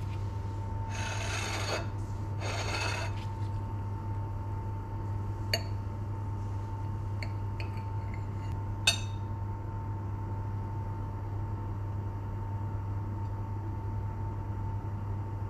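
Knife and fork cutting a slice of cake on a ceramic plate: two short rasping scrapes near the start, then a few light clinks of metal on the plate, the sharpest about nine seconds in. A steady low hum runs underneath.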